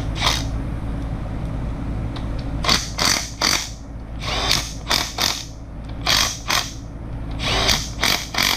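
Cordless power tool running in short bursts of a fraction of a second, in several clusters, driving the bolts of a camshaft retainer plate into an engine block.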